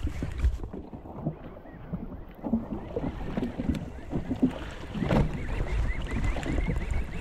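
Wind buffeting the microphone and water slapping against the hull of a jet ski drifting at sea, with a faint run of short high ticks in the last two seconds.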